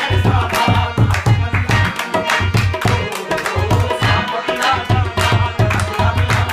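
Qawwali music: a tabla keeps a rhythm with deep bass-drum strokes under the held reedy chords of a harmonium, with hand claps keeping time.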